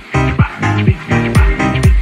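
Upbeat instrumental background music with a steady beat, just over two beats a second, each beat carrying a low note that drops in pitch.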